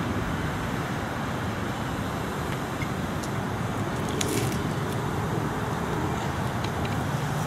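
Steady outdoor background noise, a low rumble with hiss, broken only by a few faint ticks and a brief hiss about four seconds in.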